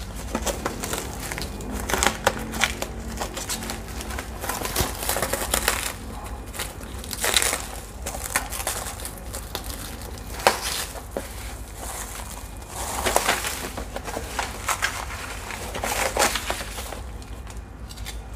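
Clear plastic stretch wrap crinkling and crackling as it is pulled and peeled off a cardboard box, in irregular bursts with a few louder crackles.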